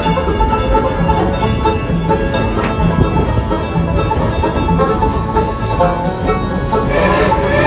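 Bluegrass-style country music with banjo and other plucked strings, over a steady beat. A rushing noise rises under it near the end.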